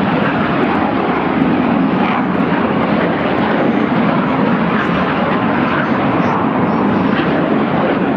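Aircraft engines running steadily, holding at a constant level with no clear rise or fall.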